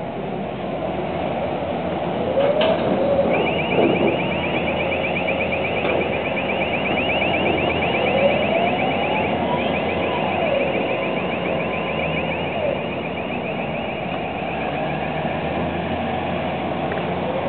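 Noell straddle carrier's diesel engine running, its pitch rising and falling as it works, with a rapidly pulsing warning alarm starting about three seconds in and sounding for about eleven seconds, with a short break near the middle.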